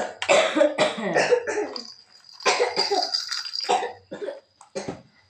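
Coughing in three bouts: a long one in the first two seconds, another about halfway through, and a short one near the end.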